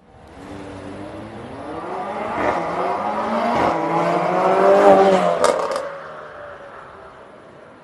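Mercedes-AMG A45's turbocharged four-cylinder with decat downpipe and Valvetronic catback exhaust, valves open in Sport mode, accelerating past. The engine note climbs through several gear changes and grows louder to a peak about five seconds in. A quick burst of exhaust crackles follows, then the sound fades as the car moves away.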